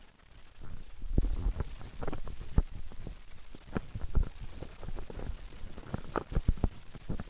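Handling noise from a hand-held camera and footsteps on a trail: irregular knocks and crackles over a low rumble of wind on the microphone.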